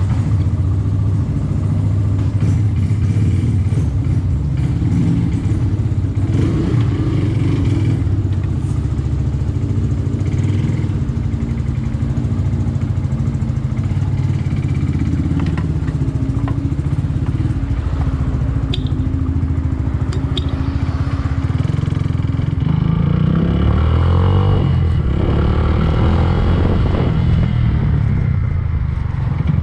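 Yamaha Fazer 150's single-cylinder four-stroke engine running steadily, its engine speed rising and falling in the last third.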